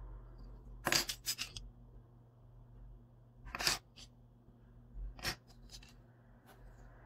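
Black plastic hair-clipper guide combs clicking and clacking against one another as they are handled, in three short bursts of clicks.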